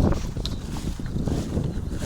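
Wind buffeting the action camera's microphone: a low, uneven rumble that eases a little about half a second in, with a few faint taps.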